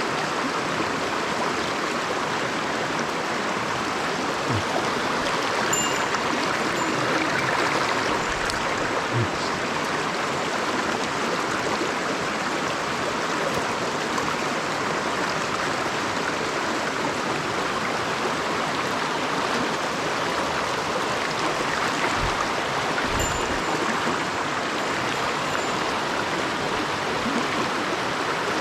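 Mountain stream rushing steadily over rocks, with a few faint low knocks and thumps.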